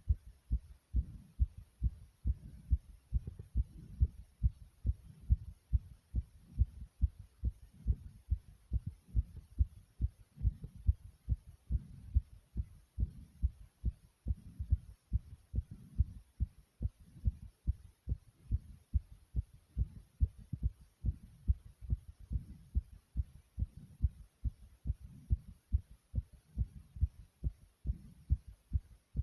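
A person's heart beating fast after exercise: a quick, steady run of low thumps.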